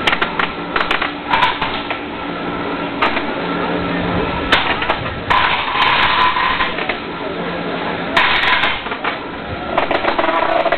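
Small combat robots colliding and scraping on a concrete arena floor: repeated sharp plastic and metal knocks and clatters over a faint steady whine from their drive motors.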